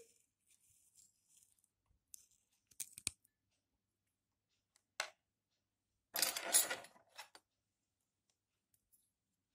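Handling noises as an aloe vera leaf and kitchen things are moved about by a plate: scattered small clicks and taps, a quick run of ticks about three seconds in, and about a second of rustling, scraping noise about six seconds in, the loudest sound.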